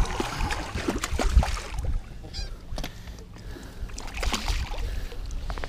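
A hooked bass thrashing and splashing at the water's surface beside the boat during the fight: irregular sharp splashes, with a low rumble underneath.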